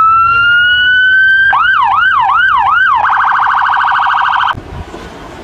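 Electronic police siren: a tone that climbs slowly, then a quick up-and-down yelp, then a rapid warble, cutting off suddenly about four and a half seconds in.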